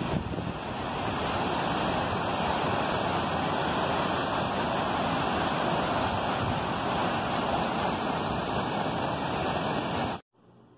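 Steady rushing of a rocky waterfall and cascade, white water pouring over and between boulders. It cuts off suddenly near the end.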